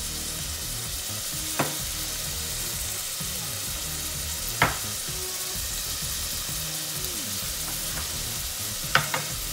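Chopped onions and greens sizzling steadily in oil in an aluminium pot, with a few sharp knocks of the stirring utensil against the pot: one about a second and a half in, one near the middle and two close together near the end.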